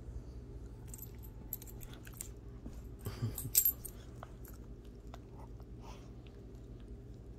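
Small dog playing rough with a hand, scuffling and mouthing at it, with scattered light clicks and one louder brief scuffle about three and a half seconds in.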